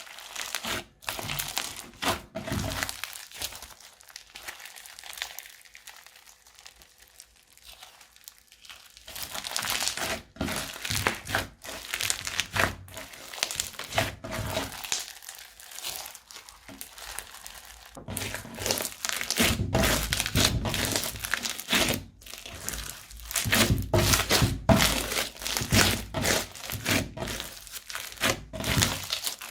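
Crunchy slime being squeezed and pressed by hand, a dense run of crackles and small pops. It gets louder about nine seconds in, and from about eighteen seconds the presses carry heavier, lower thuds.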